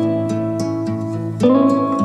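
Background music of plucked and strummed acoustic guitar, with a new chord struck about one and a half seconds in.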